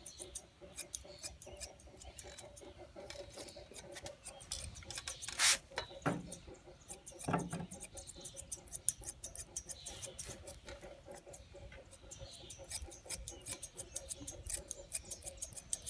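Thinning shears snipping the long hair on a Newfoundland dog's foot: a quick run of crisp snips with short pauses. A brief louder noise comes about five and a half seconds in.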